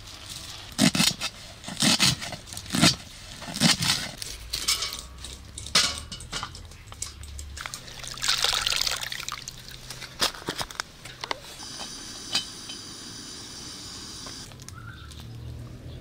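Water splashing and dripping into a bowl as handfuls of washed, chopped chives are lifted and squeezed out, about halfway through. Before it come a few loud sharp clicks, about one a second.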